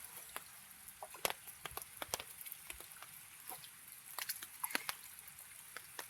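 Light rain: scattered drops ticking irregularly, over a faint steady hiss.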